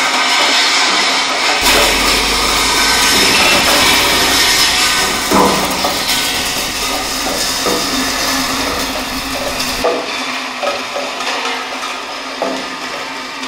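Ribbed steel rings of a towed triple land roller rolling over concrete: a loud, continuous rattling grind, with a few louder clunks along the way.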